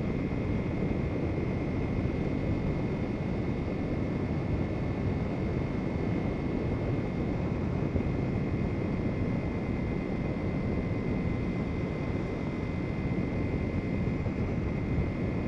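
Kawasaki Ninja 300's parallel-twin engine running steadily at a constant cruising speed of about 60 km/h, mixed with wind and road noise at the rider's helmet camera.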